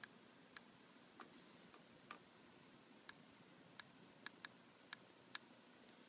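Stylus tapping on a touchscreen: about ten faint, sharp taps at irregular intervals, two in quick succession a little past the middle, against near silence.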